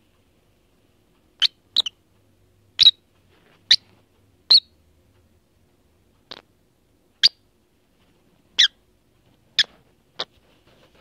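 Lovebird giving about ten short, sharp chirps, spaced irregularly about a second apart.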